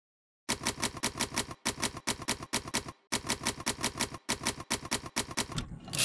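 Manual typewriter keys striking in a fast, even run of clicks, about six a second, in short groups with brief pauses between words. It starts about half a second in.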